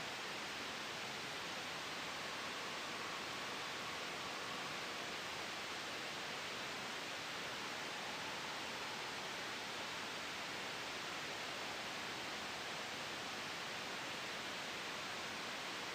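Steady white noise blended with a soft, gentle wind hiss, even and unchanging in level, with no sudden sounds.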